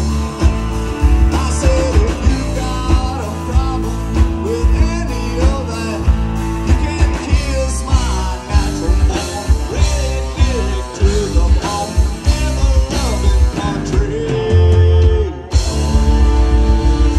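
A live country-rock band playing: electric and acoustic guitars, bass and drums with a steady beat and a melody line over it. Near the end the band holds a chord, stops for a moment, then comes back in at full volume.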